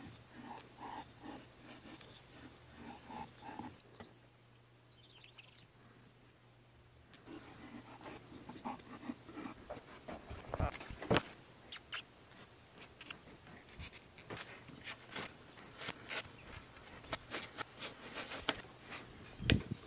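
Light scratching and small clicks of hand tools working a sheet of rubber on a cutting mat: dividers scribing a circle, then a craft knife cutting a round gasket out along the line. The irregular sharp clicks and scrapes get louder in the second half.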